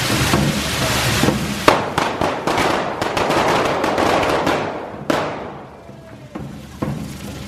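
Carretilles (hand-held spark-spraying fireworks) burning on the devils' forks: a dense hiss full of crackling pops, with a loud bang a little under two seconds in and another about five seconds in, after which the hiss dies away.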